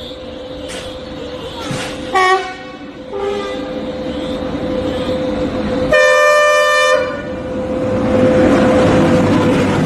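Electric locomotive horn blowing: a short blast about two seconds in, a brief weaker one a second later, and a longer blast of about a second midway. Then the loud rush of a train passing close by on the next track, building toward the end.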